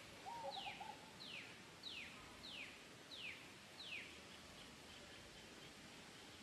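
A bird calling a clear whistled note that slides downward, repeated about six times at an even pace of a little under two a second, then stopping about four seconds in. Faint outdoor background.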